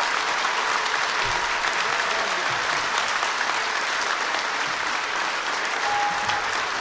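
Large audience applauding steadily, with the choir on stage clapping along.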